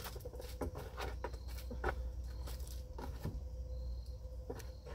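Packaged craft supplies being handled and sorted: irregular small clicks and rustles of plastic and card packaging over a steady low hum.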